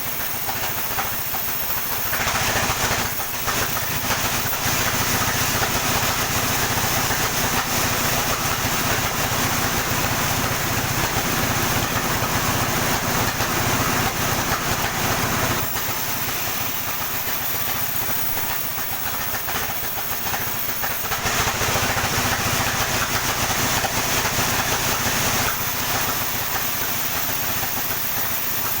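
Sawmill running steadily, with two long louder stretches of the saw cutting through a coconut palm log: the first from about two seconds in to about fifteen seconds, the second from about 21 to 25 seconds.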